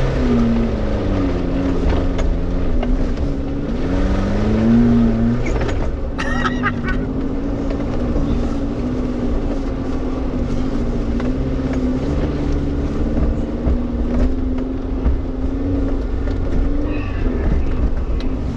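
Suzuki Jimny's engine running under load while driving off-road, its revs rising and falling again and again.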